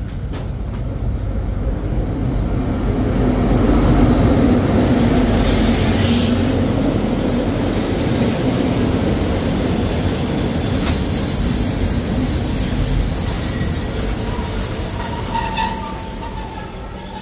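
Diesel-hauled passenger train running into a station platform. Its rumble builds over the first few seconds and then holds steady as the carriages roll past. In the second half a thin, high, steady squeal joins in as the train brakes toward a stop.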